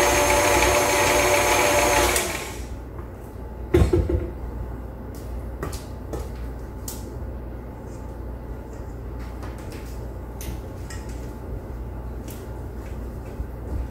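Stand mixer's motor running with a steady whine, switched off about two seconds in. A single thump follows, then faint taps and scrapes of a spatula against the stainless steel mixing bowl.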